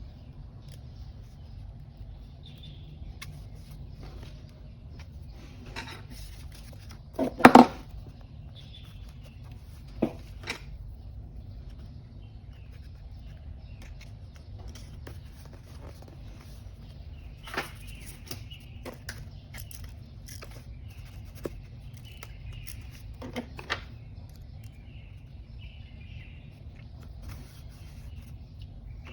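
Paper-crafting sounds from journal collage work on a desk: scattered light taps, paper rustles and small clicks of stationery being handled, with a louder double knock about seven seconds in, over a steady low hum.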